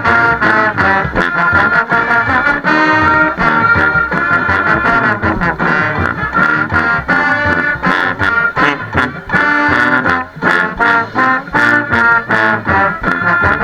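Band playing a stand tune: brass instruments in loud full chords over a steady drum beat, recorded through a GoPro's waterproof case.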